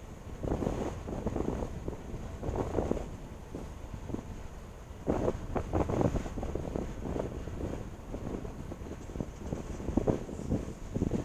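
Wind buffeting the microphone in irregular gusts, a low rumbling that swells and drops every second or two.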